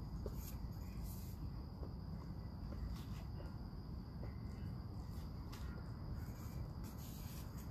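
Crickets trilling steadily in a thin, high, continuous tone over a low rumble, with a few brief sharp sounds scattered through.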